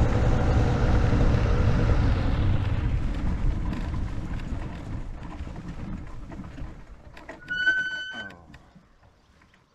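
Paramotor trike rolling out on grass after touchdown: a low rumble of the throttled-back engine and the wheels that fades steadily as the trike slows. About three-quarters of the way through, a brief high steady tone lasting under a second is the loudest moment, and then it goes nearly quiet.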